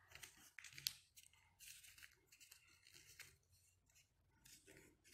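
Faint rustling and crackling of a sheet of paper being folded and creased by hand, with one sharper crackle about a second in.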